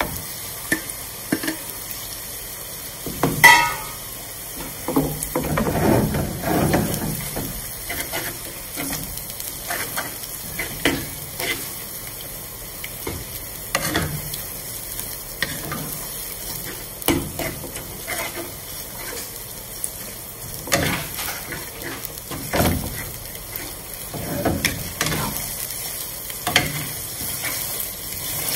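Minced chicken sizzling as it fries with softened onions in a coated wok, stirred and pushed about with a wooden spatula that knocks and scrapes against the pan. A loud ringing clank sounds about three and a half seconds in.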